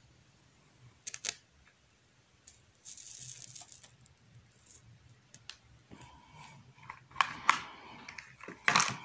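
Handling noise close to the microphone: a few sharp clicks about a second in, a brief rustle around three seconds, and a run of louder clicks and rustling near the end.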